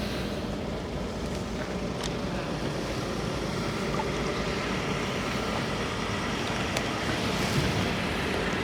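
Steady low rumbling outdoor noise with no clear source, with a faint click about two seconds in.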